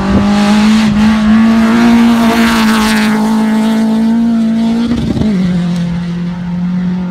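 Subaru Impreza rally car's flat-four engine running hard at high revs on a gravel stage. The engine note rises a little early on and drops in pitch about five seconds in, with a hiss of gravel and dust loudest around two to three seconds in.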